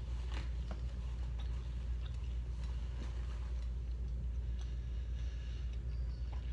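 Faint, scattered clicks and smacks of chewing and of hands picking at seafood, over a steady low hum.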